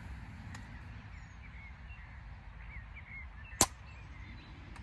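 A single sharp, short crack about three and a half seconds in: a silenced .177 Theoben Rapid MK1 pre-charged air rifle firing a slug from the hide. Small birds chirp faintly over a low wind rumble.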